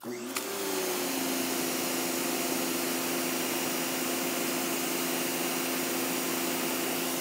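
Greenworks 2000 psi electric pressure washer starting up as the trigger is pulled and running steadily through a 25-degree nozzle: the electric motor and pump hum under the hiss of the water jet, settling within about a second. The pump is building just under 1900 PSI.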